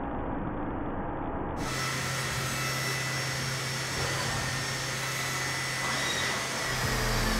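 Milling spindle running as an M5F90 face milling cutter cuts an aluminium cylinder head, a steady noisy machining sound. It is muffled at first and turns bright about a second and a half in, with a steady low hum, and a whine falling in pitch near the end.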